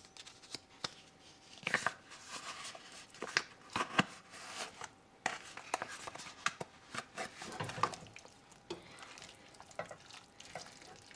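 A foil tuna pouch being torn open and crinkled as the tuna is squeezed into a saucepan, then a spatula stirring and scraping in the pan. It comes as a string of light clicks, taps and rustles.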